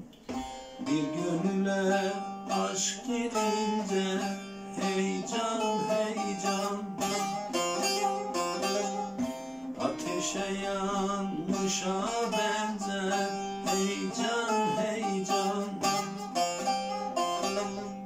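Short-neck bağlama (kısa sap saz) being plucked, playing a Turkish folk melody over a steady open-string drone.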